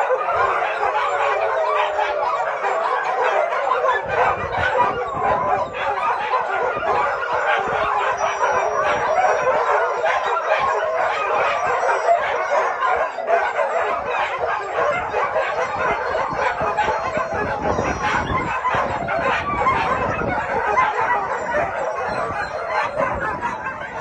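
A large pack of shelter dogs, hundreds of them, barking and howling all at once in one continuous din of overlapping voices, easing slightly near the end.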